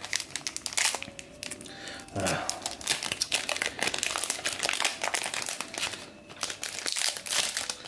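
Foil wrapper of a trading-card booster pack crinkling irregularly as it is handled and opened.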